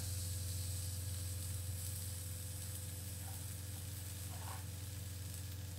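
Sliced shallots sizzling in a little hot oil in a frying pan, a steady hiss that eases off slightly, over a steady low hum.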